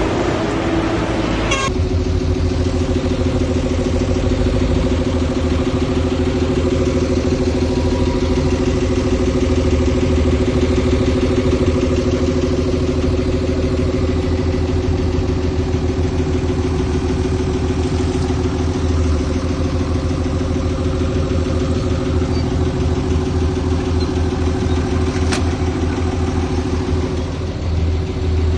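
Heavy construction machine's diesel engine running steadily at a constant note, settling into it about two seconds in. A single sharp click comes near the end.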